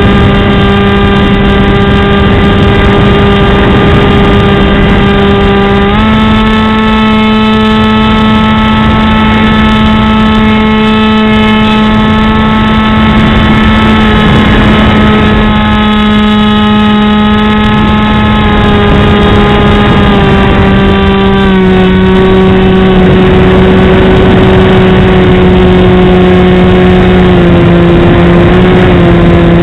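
Multiplex EasyStar RC plane's electric motor and pusher propeller buzzing steadily, heard from a wing-mounted camera with wind rushing over the microphone. The pitch steps up about six seconds in, sinks gradually through the second half, and jumps back up at the very end.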